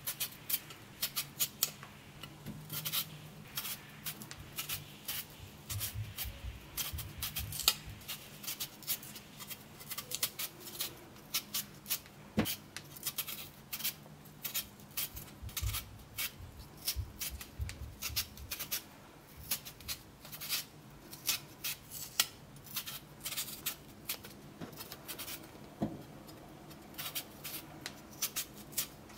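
A potato being shaved with a blade: quick scraping strokes, several a second in irregular runs with short pauses, and a few soft low thumps from handling now and then.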